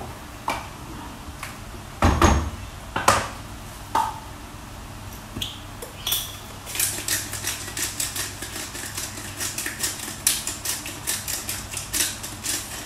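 Seasoning a pan of tomato sauce: a few knocks and shakes of a salt shaker over the wok, the loudest about two seconds in, then a pepper grinder twisted by hand, giving a fast run of small ratcheting clicks from about halfway to the end. A low steady hum lies underneath.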